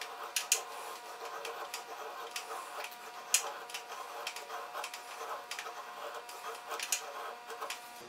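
Schrade Old Timer 30OT fixed-blade knife, with a hollow-ground recurve blade, shaving thin curls off a stick of kiln-dried hard maple to make a feather stick. It is heard as a series of short scraping strokes, about one or two a second.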